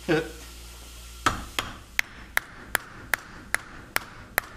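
Hammer striking a bolt used as a drift against the rear brake caliper piston of a Nissan 350Z, driving the stuck piston out of its bore. About nine evenly spaced metal-on-metal taps with a bright ring, two to three a second, starting about a second in.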